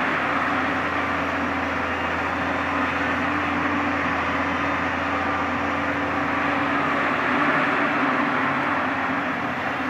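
Komatsu PC200 hydraulic excavator's diesel engine running steadily, a little louder about seven seconds in.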